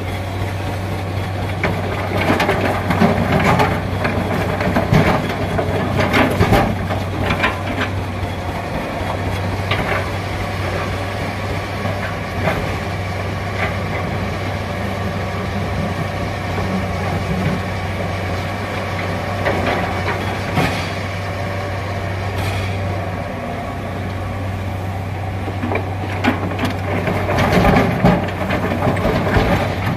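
Komatsu PC200-7 hydraulic excavator's diesel engine running steadily, with bursts of clattering and knocks a few seconds in and again near the end.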